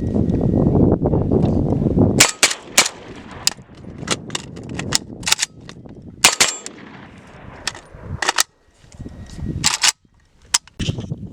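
Gunfire at a shooting range: a long, irregular string of sharp shots, around fifteen to twenty, starting about two seconds in. For the first two seconds there is only wind buffeting the microphone.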